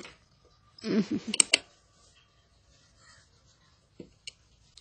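Fabric being handled and shifted at a sewing machine, with no stitching: a brief rustle with sharp clicks about a second in, then two faint clicks near the end.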